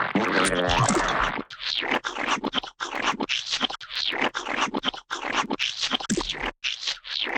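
Gooey splat sound effects: a longer wet, squishy stretch for about the first second and a half, then a quick series of short splats, about two a second.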